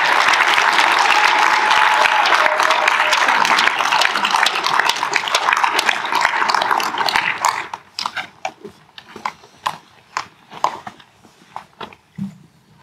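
Audience applauding, dense and loud for about seven seconds, then dying away to a few scattered claps.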